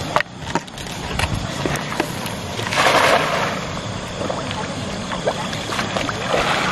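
Cast net being readied and thrown over a river: scattered light rustles and knocks of the net over a steady rush of water. A louder rush of noise comes about three seconds in.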